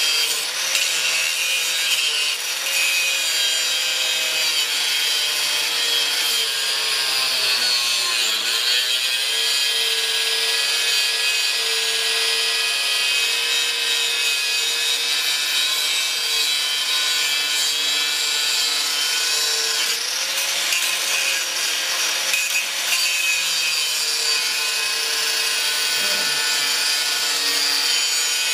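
DeWalt angle grinder cutting into the rusted steel frame of a 2005 Chevy Silverado: a steady, loud grinding with the motor's whine over it. The motor's pitch dips briefly about eight seconds in and again near the end.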